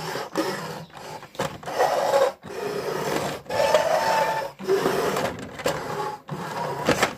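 Plastic toy lorry pushed back and forth by hand across a tabletop, its wheels running with a rasping whirr in repeated strokes of about a second each, broken by short pauses.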